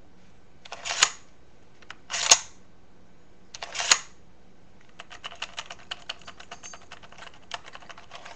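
Mosin-Nagant M91/30 bolt worked back and forth: three sliding strokes, each ending in a sharp metal clack, a second or so apart, then a string of faint light ticks. The bolt runs freely and smoothly, very fluid even though the action is full of cosmoline.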